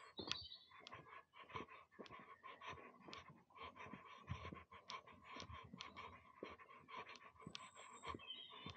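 Footsteps on a dry dirt path: a steady run of soft, uneven scuffing steps, with a bird chirping briefly just after the start and again near the end.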